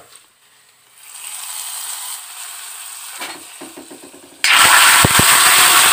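Hot coconut-oil tempering of mustard seeds, shallots, dried chillies and curry leaves sizzling faintly in the pan. About four and a half seconds in, it is tipped into a clay pot of coconut curry and breaks into a sudden loud sizzle, with a few knocks.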